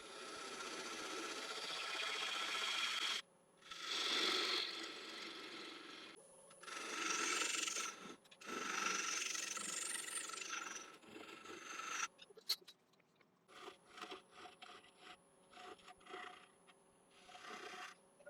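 Spindle gouge cutting into the base of an ash bowl spinning on the lathe, in several passes of a second or few with short pauses, over a faint steady high whine. About twelve seconds in, the cutting gives way to quieter scattered scrapes and clicks.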